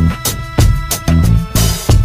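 Background music with a steady beat: drum hits several times a second over a bass line and held tones, with a hissy cymbal-like swell near the end.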